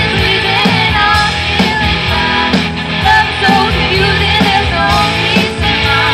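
Live rock band playing, with a woman singing lead over electric guitar, bass guitar, keyboard and drums.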